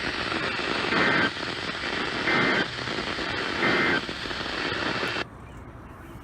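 NOAA Weather Radio Emergency Alert System end-of-message: three short, identical bursts of SAME data tones about 1.3 s apart, closing the weekly test, over radio hiss. The hiss cuts off suddenly about five seconds in.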